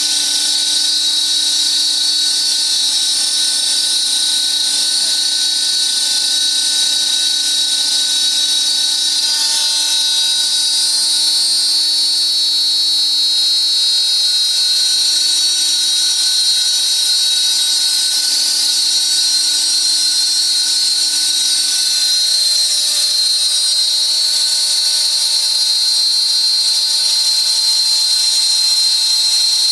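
High-speed spindle of a CNC glass slotting and milling router running with a steady, high-pitched whine.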